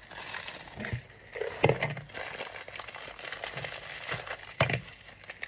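Rustling and crinkling of cereal packaging and a Weetabix biscuit being handled and crumbled over a bowl, with a few small knocks, the clearest about one and a half seconds in and near the end.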